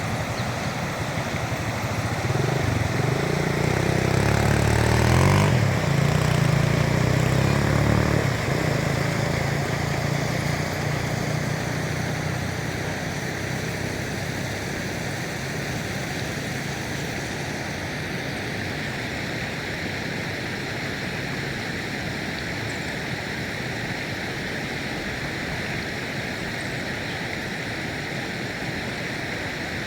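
A motor engine passes close by, loudest a few seconds in and fading away by about twelve seconds, over a steady rush of flowing river water.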